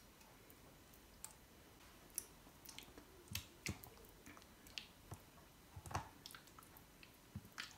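Faint wet squishing and scattered soft clicks as masala marinade paste is scraped from a bowl with a silicone spatula and rubbed by hand into chicken pieces in a glass baking dish.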